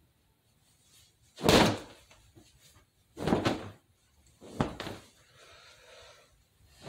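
Three dull thumps about a second and a half apart, the first the loudest, followed by a fainter rustle.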